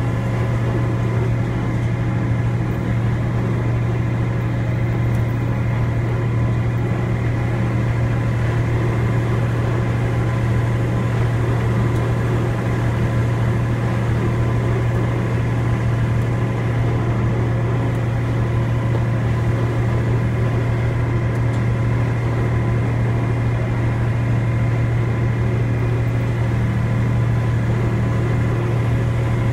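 Steady low engine drone of a ride train, heard from aboard, with a few faint whining tones above it and no change in pace.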